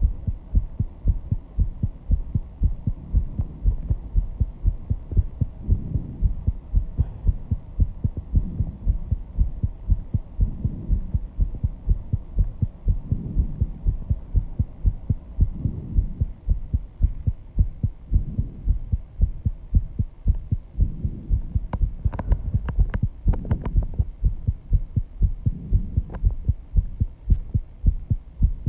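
A person's heartbeat, fast and steady, raised by intense exercise, with heavy breathing rising and falling about every two and a half seconds. A few sharp clicks come about three-quarters of the way through.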